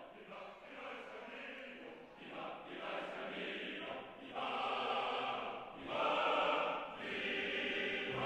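Wordless choral music held on sustained chords. It swells louder about halfway through.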